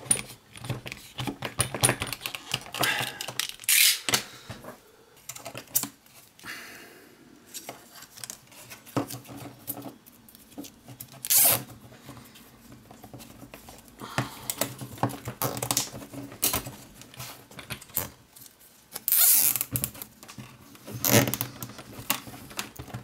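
Hand-work on a power drill's cord: a knife cutting away the old rubber chuck key holder, then a plastic 3D-printed holder being fitted and nylon cable ties zipped through their ratchets around it. Irregular clicks and rustles, with a few louder scrapes about a second long.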